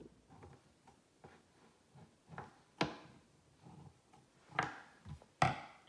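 Kitchen scissors snipping through a stack of spring roll wrappers on a plastic cutting board. A series of short, sharp snips at uneven intervals.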